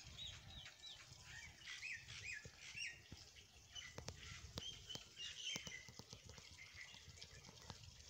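Small birds chirping in short phrases of repeated, hooked notes, faint and at a distance. Scattered sharp clicks and crackles and a low rumble run underneath.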